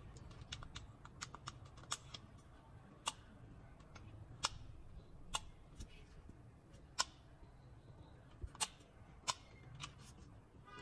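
Plastic buttons and rocker switches of a Dodge Journey driver-side master power window switch clicking as they are pressed one at a time: about fifteen faint, sharp clicks at irregular intervals, some louder than others.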